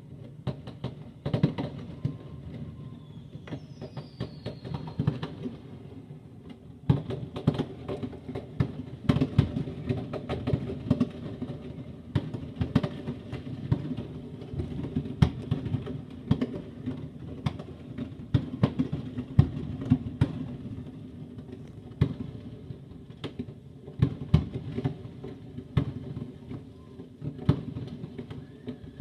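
Fireworks going off: many sharp bangs and cracks at irregular intervals over a continuous low rumble, with a brief falling whistle about four seconds in.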